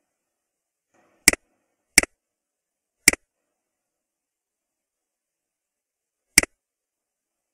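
Computer mouse button clicking four times: three clicks about a second apart starting a second in, then one more about three seconds later. Each click is a sharp double tick of press and release.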